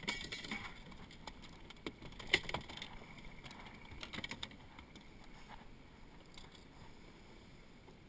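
Scattered clicks and knocks of fishing tackle being handled in a small boat, as a rod and line are readied to go back in the water, over a low steady background. The knocks die away after about four seconds.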